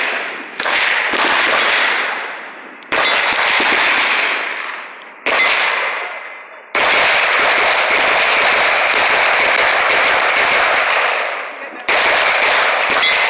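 Gunfire at a shooting range: single shots every second or two, each with a long echo dying away, and a few seconds in, a rapid string of shots.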